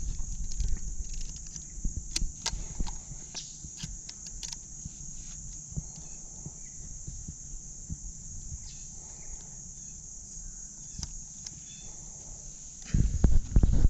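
Steady high drone of insects, with scattered knocks and clicks of handling in a jon boat and a short run of louder low thumps near the end.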